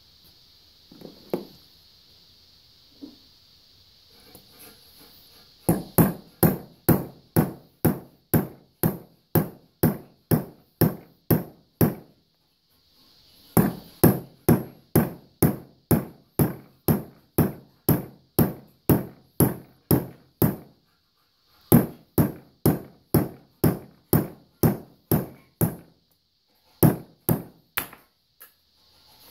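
Rapid, evenly spaced hammer blows, about two or three a second, in several runs with short pauses between them. They drive a ball through a newly installed valve guide in a John Deere 3 HP hit-and-miss engine head to size the guide.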